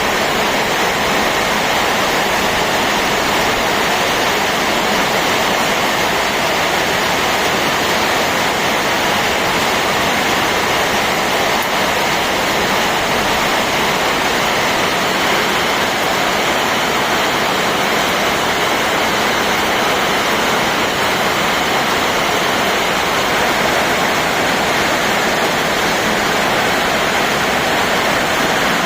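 Rain falling steadily: an even, dense hiss that holds one level, with no single drops or knocks standing out.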